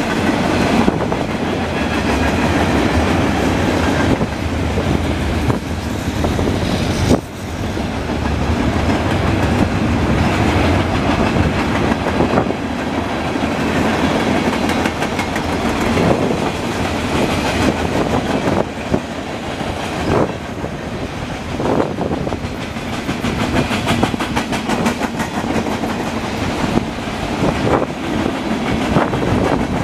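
Freight cars of a manifest train (covered hoppers, tank cars, a gondola) rolling past: a steady rumble of steel wheels on rail, with scattered clicks and knocks as the wheels cross rail joints.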